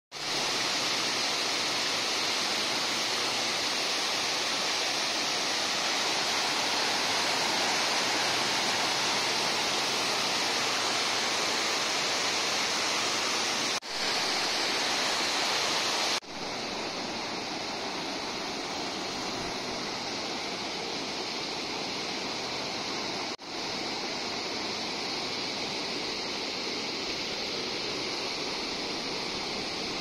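Waterfall cascading down rock faces: a steady, dense rushing of falling water. It drops out briefly three times, around 14, 16 and 23 seconds in, and is a little quieter after the second break.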